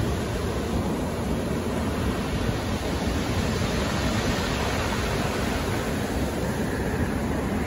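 Rough sea surf breaking and washing up onto a pebble beach: a steady rush of waves with no separate knocks.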